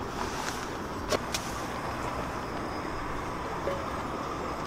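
Portable cassette gas burner running steadily under a pot of water being brought to the boil. Two light metal clicks from the cookware come about a second in.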